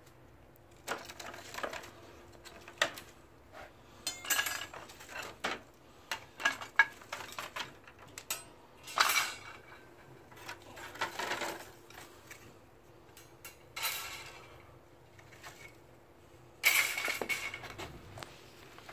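Irregular rattling, scraping and knocking of a plastic crate holding dry twigs, jostled as a cat scrabbles inside it after a mouse and a hand shifts its contents. The clatters come in scattered bursts, the sharpest around the middle.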